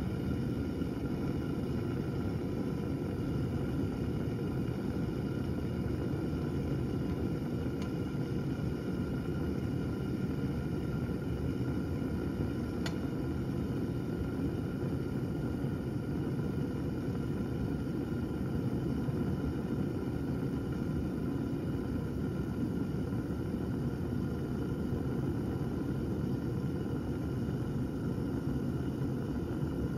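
Steady low rumble from a stoppered flask of water being heated as a model geyser; the water is still calm, short of eruption. A single faint click sounds about 13 seconds in.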